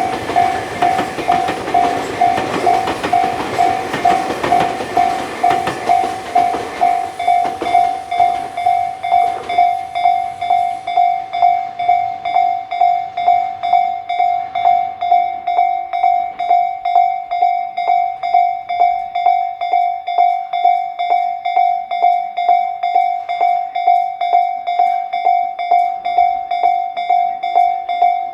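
Japanese level-crossing electronic warning bell ringing in an even, repeating kan-kan rhythm. A Tobu Isesaki Line train runs past at the same time, and its running noise fades away over the first several seconds while the bell keeps ringing.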